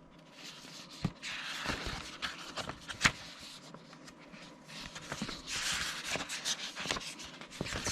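Rustling of paper and packaging being handled during an unboxing, with a few light clicks and taps. The rustling comes in two spells, and a sharp click stands out about three seconds in.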